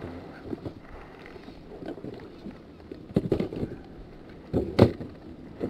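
Knocks and thumps of fishing gear being handled on an inflatable boat, the two loudest about three and five seconds in, over a steady low hiss of wind and water.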